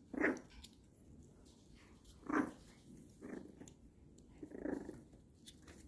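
Young puppies giving short whimpers and grunts, four separate little calls spread over a few seconds.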